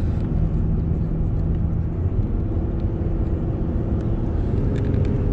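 Car interior at highway speed: steady engine hum and tyre and road rumble heard from inside the cabin. The engine's hum shifts slightly in pitch a couple of times.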